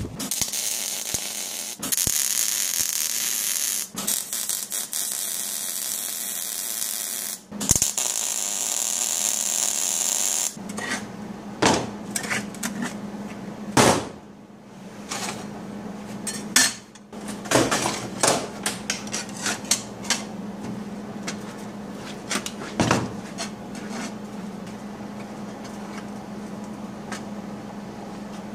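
An angle grinder grinding steel plate for about the first ten seconds, a steady loud hiss in several passes with short breaks. Then metal parts clink and knock against each other and a workbench, with light hammer-like taps over a steady low hum.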